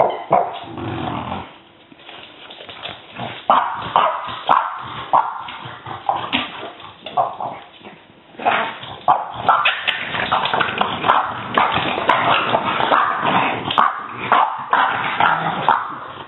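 French bulldog puppy barking and yipping in rough play, mock-aggressive rather than truly vicious. The short sharp barks come in scattered bursts at first, then in a dense run through the second half.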